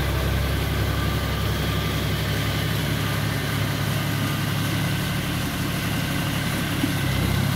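John Deere 5045D tractor's three-cylinder diesel engine running steadily under load, pulling a rotavator through flooded paddy mud.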